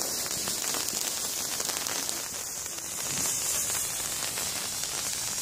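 Ground firework fountain spraying sparks: a steady, dense hiss with fine crackling.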